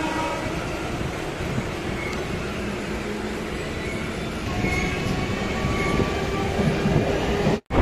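Suburban local train running, heard from inside the coach: a steady rumble of wheels on track with faint short squeals. The sound cuts out for a moment near the end.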